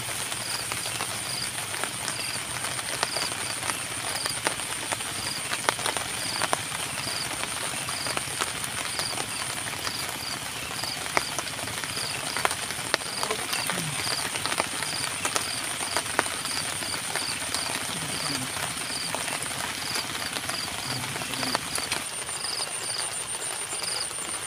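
Steady rain falling, with scattered drip clicks, under a continuous high insect buzz and a short repeated chirp about twice a second.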